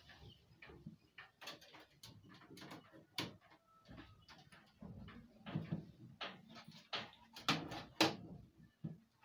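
Cable plugs being handled and pushed into the rear ports of a desktop computer tower: a scatter of light clicks and knocks at uneven intervals, with louder ones about three seconds in and again near the end.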